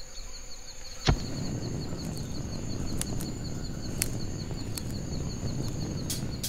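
Flame of a burning hand-held torch, a steady rushing noise with a few sharp crackles, starting with a sharp click about a second in.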